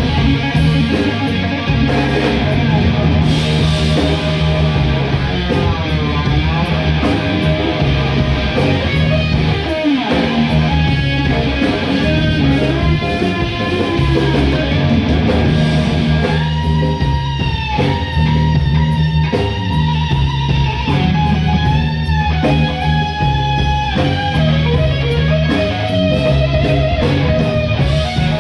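Live rock band playing loud: electric guitar lead over bass guitar and drums, with a falling pitch dive about ten seconds in and long held, wavering, bent notes in the second half.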